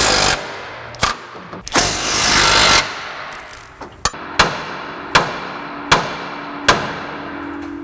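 Cordless impact wrench hammering on the lower control arm's inner pivot bolts of a GMT400 pickup in two short runs, the second about a second long, working the seized bolts loose. From about four seconds in come five sharp metal-on-metal strikes, evenly spaced, each leaving a ringing tone.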